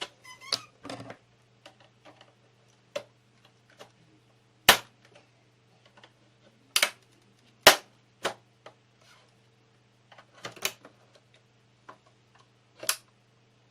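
Plastic case of an Asus VH192D LCD monitor being pried apart: sharp clicks and snaps from its clips at irregular intervals, the loudest a third of the way and about halfway in, over a faint steady low hum.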